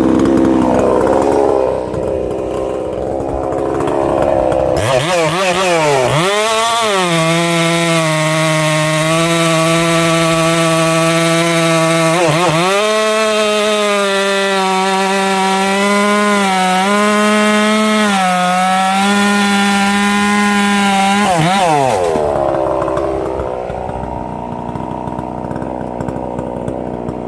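Husqvarna 262XP two-stroke chainsaw running at high revs while cutting through a big ash log. Its pitch dips sharply and recovers three times as the chain loads up in the wood.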